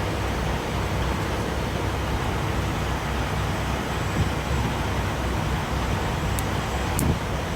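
Steady low rumble of a running vehicle engine, with a couple of faint sharp clicks near the end.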